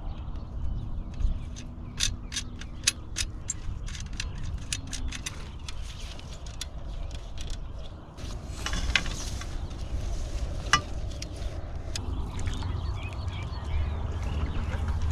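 Sharp clicks and clatter from the metal frame of a whitebait scoop net as it is handled and opened out, with a burst of rustling about nine seconds in, over a steady low rumble.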